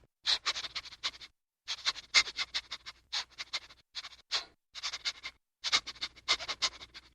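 Bursts of rapid scratching, many quick strokes in each burst, broken by short silences several times.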